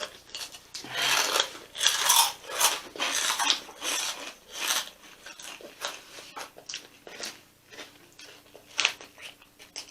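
Crunchy flaming hot chips being bitten and chewed: a run of irregular crunches, louder and closer together in the first half, thinning out later.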